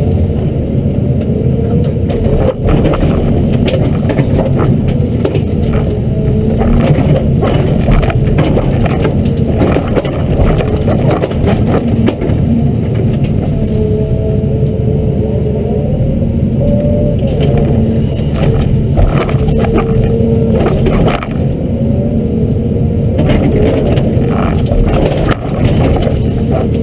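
Hyundai R210 LC-7 excavator's diesel engine running steadily under load. A hydraulic whine glides up and down in pitch as the rake works, with frequent knocks and clatters throughout.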